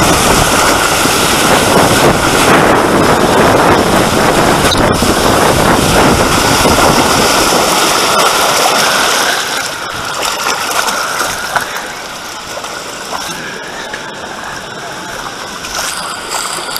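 Loud rush of slide water and wind against a camera carried by a rider on a mat racer water slide, easing off about ten seconds in as the mat slows on the flat runout.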